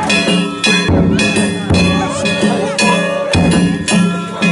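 Danjiri cart's festival percussion (narimono): hand gongs and drum struck in a steady, repeating rhythm, the gongs ringing over the drum beats.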